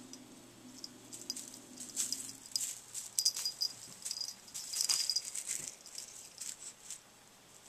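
A Bengal cat batting a small toy across the carpet, the toy rattling and jingling in irregular bursts, busiest around two and five seconds in.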